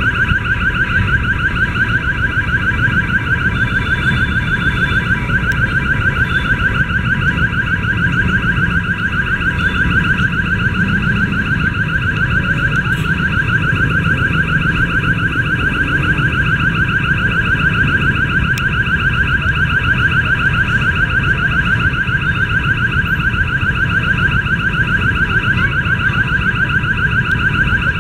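Railway level-crossing warning bell ringing rapidly and without a break, the signal that a train is approaching the crossing. A low steady rumble lies underneath.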